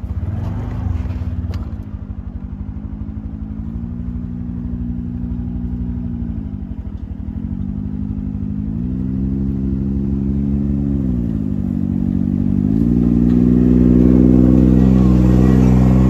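Honda Scoopy scooter's 110 cc single-cylinder engine running while ridden. Its note drops and rises twice with the throttle, then climbs and gets louder near the end.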